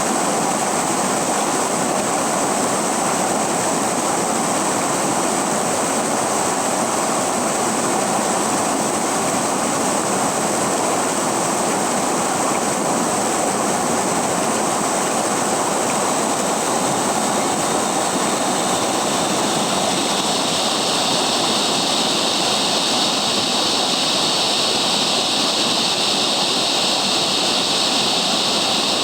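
River water rushing and splashing in a steady flow, a little brighter and hissier from about two-thirds of the way through.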